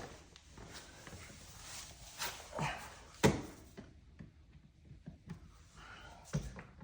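Scattered clicks, scrapes and knocks of a flathead screwdriver working at the screws of a dishwasher's lower access cover, with one sharp click a little over three seconds in the loudest.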